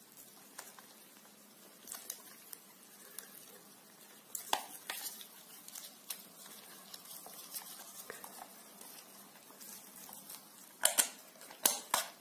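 Small plastic clicks and taps of a Trodat self-inking stamp being handled as its latch is pressed and the ink pad pushed out; a sharper click about four and a half seconds in and a quick run of clicks near the end.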